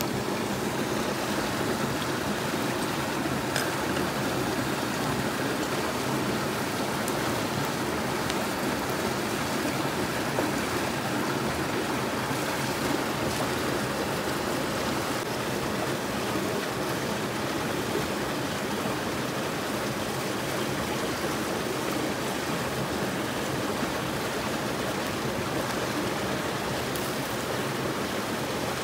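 Steady rushing of a flowing stream, with a few faint clicks.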